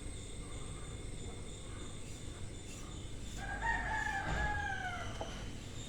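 A rooster crowing once, a single drawn-out call of nearly two seconds that falls slightly in pitch toward its end.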